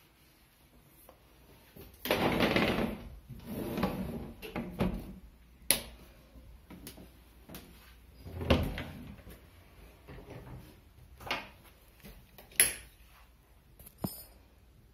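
Handling sounds in a small room: rustling with a run of sharp knocks and clicks, the loudest rustle about two seconds in.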